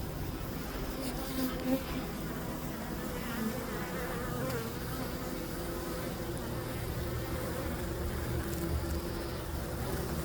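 Honeybees buzzing in flight, many wingbeats overlapping, with the pitch of single bees wavering as they pass close by.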